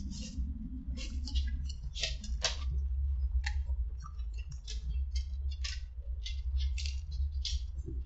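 Paper sandwich wrapper crinkling as a fried chicken sandwich is handled, in short, irregular crackles about twice a second, over a steady low hum.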